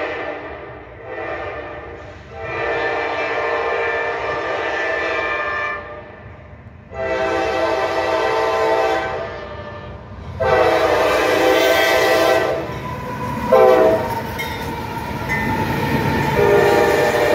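Norfolk Southern diesel freight locomotive's air horn sounding a chord in a series of long and short blasts as the train approaches, with a brief loudest blast about two thirds of the way in. Locomotive engines and wheels rumble in under the horn as the lead units pass close by near the end.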